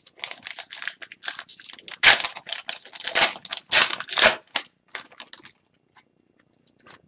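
Hockey trading cards being handled: a quick run of paper-on-paper rustling and sliding for about five seconds, then a few light ticks.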